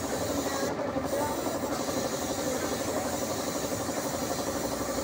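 Air compressor running steadily, feeding a gravity-feed paint spray gun, with a high air hiss that drops out briefly about a second in.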